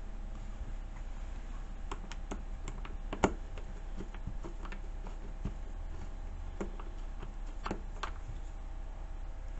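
Scattered light clicks and taps of a hand tool working the screws that hold down a chainsaw's top cover, with one sharper click about three seconds in, over a steady low hum.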